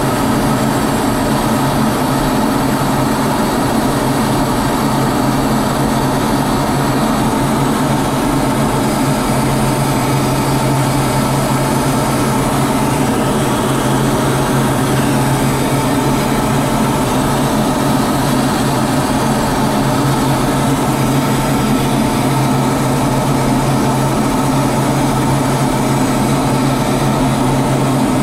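Steady engine and rushing-air noise of an aircraft in flight, heard from inside its cockpit: an unchanging drone with a constant low hum.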